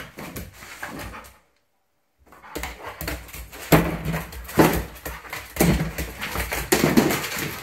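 A dog playing wildly with a towel on carpet: scuffling, thumps and towel rustling, with several short low dog vocal noises in the second half. The sound drops out briefly about one and a half seconds in.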